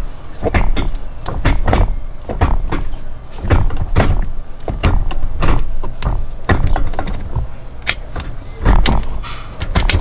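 Kartboy short shifter being worked through the gears, a quick run of metallic clunks and knocks as the lever drops into and out of each gate.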